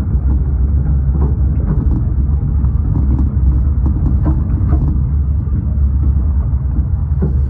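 Carriage of a 15-inch gauge miniature railway train running along the track: a steady low rumble from the wheels on the rails, with irregular clicks and knocks.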